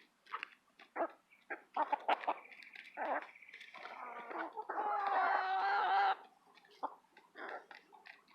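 Hens squabbling over mealworms: a run of short clucks and squawks, a thin high note held for about two seconds, then a loud drawn-out call from about four and a half to six seconds in.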